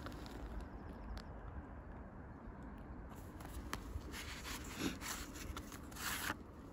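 Cardboard knife box handled in the hands, its inner tray sliding out of the sleeve with a few short scraping, rustling sounds in the second half, over a steady low rumble.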